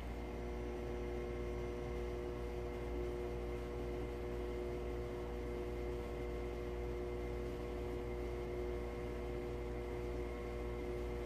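Atlas metal lathe running steadily: an even electric-motor hum with a few steady whining tones from the drive.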